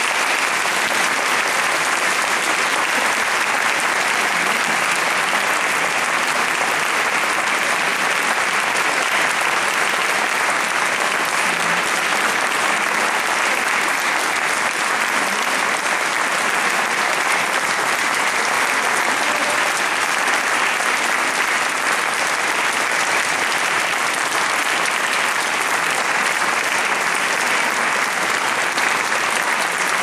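Audience applauding, a dense and even clapping that holds steady throughout.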